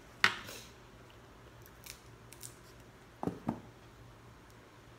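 King crab shell being cracked and snapped apart by hand: one sharp, loud crack about a quarter second in, then a few smaller snaps and a quick pair of cracks a little past halfway.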